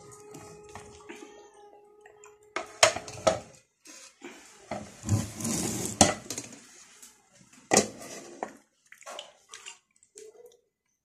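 Metal pot lid and plates clattering: sharp clinks and knocks about three seconds in, again around six and near eight seconds, with handling noise between. Near the start a domestic animal gives one long, steady cry lasting about two and a half seconds.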